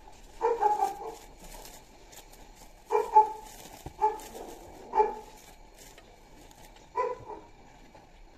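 A dog barking in short calls, about six barks in small groups, the loudest sounds here. Underneath, the faint crinkle of plastic cling film being peeled open.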